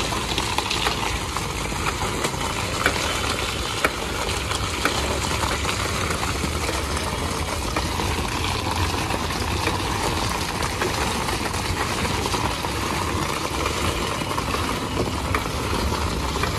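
Steady low engine rumble, like idling motors, under an even hiss, with a few scattered light clicks.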